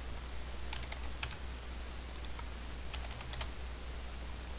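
Computer keyboard keys tapped in two short runs of clicks, about a second in and again about three seconds in, over a steady low hum.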